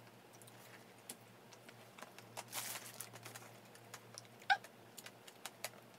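Faint eating and handling sounds from someone eating fast-food chicken nuggets: small scattered clicks and mouth smacks, a short rustle about two and a half seconds in, and a brief voiced 'mm' about four and a half seconds in.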